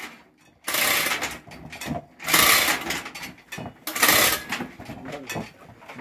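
Manual chain hoist being worked, its chain rattling through the hoist in three bursts, the first about a second long.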